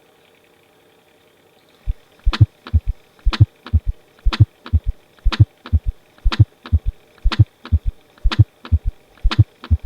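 Recorded heart sounds in a gallop rhythm, an abnormal extra heart sound beside the lub-dub that points to a third or fourth heart sound, at a heart rate of about 60 beats a minute. The low thumps start about two seconds in and come in repeating groups about once a second.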